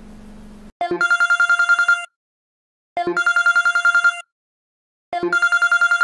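A Samsung phone ringtone: a synthetic telephone ring, a fast electronic trill on one pitch. It rings three times, each ring just over a second long, with short silences between.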